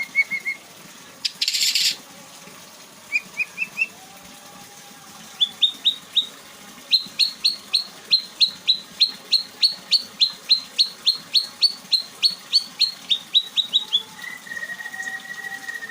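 White-rumped shama (murai batu) singing through its repertoire of learned songs: a few short notes and a brief hiss, then a long run of rapid, sharply falling high chip notes, about three a second, ending in a steady held whistle near the end.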